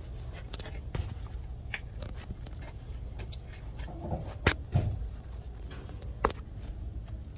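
Scattered light clicks and knocks over a steady low rumble, the sharpest about four and a half seconds in and again near six seconds.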